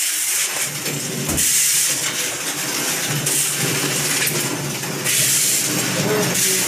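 Steel frame of a large candlenut-processing machine being pushed and dragged across a tiled floor, scraping and rattling steadily in surges as it is shoved along.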